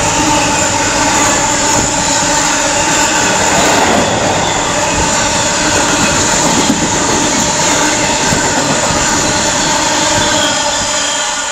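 Freight steel train of hooded coil wagons passing through on the near line: a steady, loud rumble and rattle of wagon wheels on the rails, with a steady tone running over it. It begins to fade near the end as the last wagons go by.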